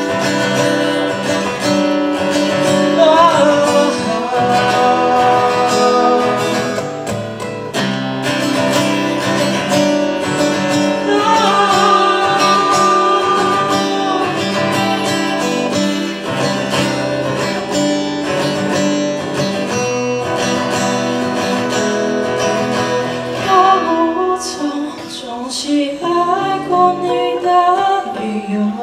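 Acoustic guitar playing the instrumental break of a live ballad, with a lead melody line gliding above the chords.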